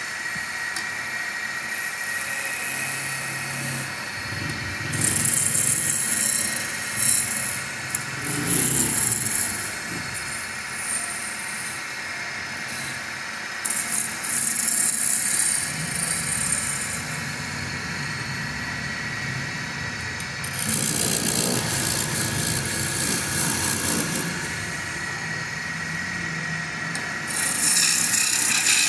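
Wood lathe running with a steady whine while a hand-held turning chisel cuts into a spinning wooden blank. The cutting comes in several louder scraping spells, about five seconds in, past twenty seconds, and again near the end, as shavings tear off the wood.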